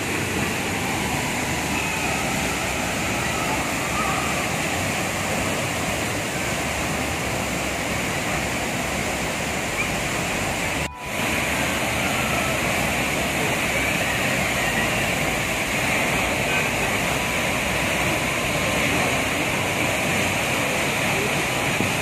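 Steady rush of the Tegenungan waterfall pouring into its pool, with a brief break about eleven seconds in.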